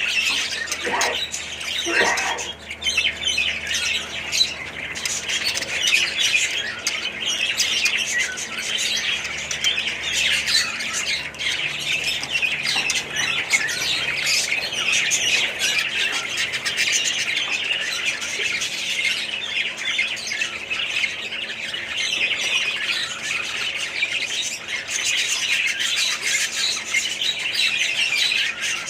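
Many caged budgerigars chattering and chirping at once in a dense, unbroken mass, with a couple of louder falling squawks near the start.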